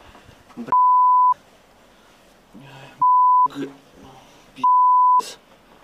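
A steady high-pitched beep sounds three times, each for about half a second, and all other sound drops out while it lasts: a censor bleep laid over a man's words. Brief muttered speech is heard between the bleeps.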